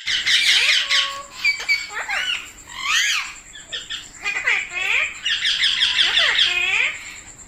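Indian ringneck parakeets squawking and chirping: harsh screeches mixed with many short up-and-down whistled notes, almost without a break, easing off just before the end.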